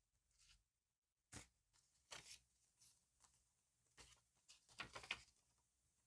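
Faint, scattered handling sounds of diary-decorating materials: soft taps and rustles of paper and stickers being picked up and laid down, with a small cluster of them about five seconds in.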